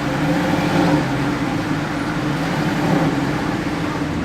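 Mercedes-Benz SLS AMG's 6.2-litre V8 running, its pitch rising and falling gently a few times.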